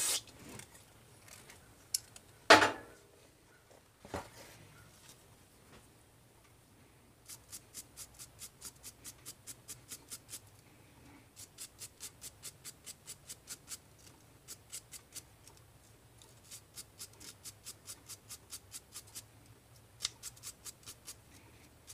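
Small brass wire brush scrubbing a carburetor jet in quick strokes, about four a second, in runs of a few seconds with short pauses. A sharp knock a couple of seconds in is the loudest sound, with a smaller one soon after.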